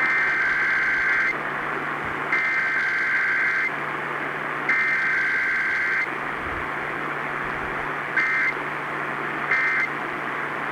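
EAS weekly test's SAME digital header: three buzzing two-tone data bursts of about a second and a half each, a second apart, then two short end-of-message bursts near the end. Heard over radio hiss with a low steady hum.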